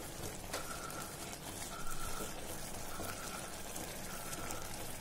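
Thick masala bubbling in a pressure cooker pan while a wooden spatula stirs it, with a few faint clicks of the spatula against the pan.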